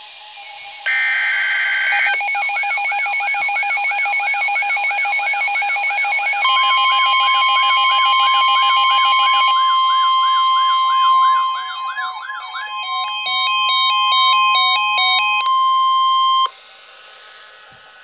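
Several weather alert radios going off at once: a short buzzing data burst about a second in, then overlapping warbling and beeping electronic alarms. From about six seconds in, NOAA Weather Radio's steady warning alarm tone sounds over them, and everything cuts off suddenly about a second and a half before the end.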